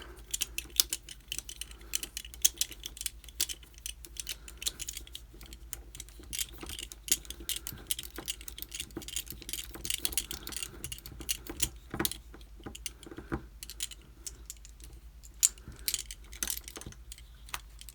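Irregular small metallic clicks and rattles from a Brady/ABUS lockout padlock being handled and taken apart by hand.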